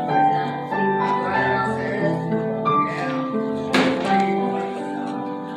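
Instrumental church music in slow, sustained notes and chords, with one sharp knock about four seconds in.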